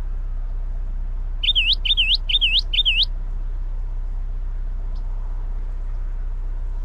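A songbird calling four quick, identical whistled notes in a row, each dipping and then sweeping sharply upward, about a second and a half in. A steady low rumble lies underneath throughout.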